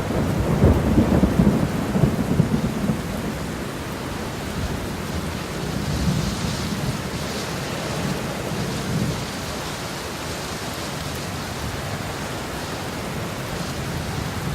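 A rainstorm: steady heavy rain with low rumbles of thunder, the strongest rumble in the first few seconds and weaker swells later.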